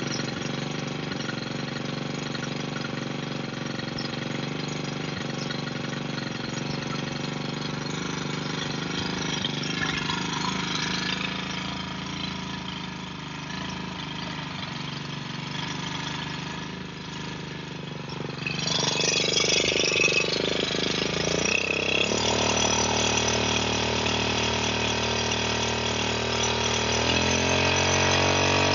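Petrol brush cutter engine idling steadily, with a brief burst of noise about two-thirds through. The engine then steps up in speed and revs higher shortly before the end, ready to drive its mixing-wheel attachment.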